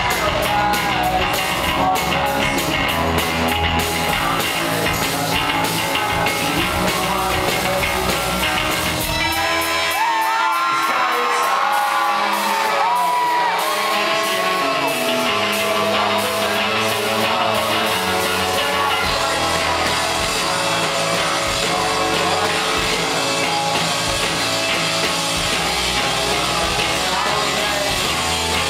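Rock band playing live on stage: electric guitar, bass and drum kit. About ten seconds in the bass and drums drop out, leaving a few seconds of sliding high notes, then the full band builds back in.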